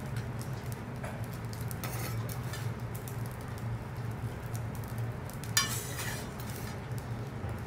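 Cutlery and dishes clinking now and then over a steady low hum, with one sharper clink about five and a half seconds in.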